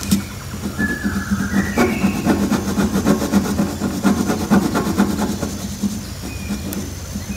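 Background music with a busy, steady rhythm and a few short melody notes.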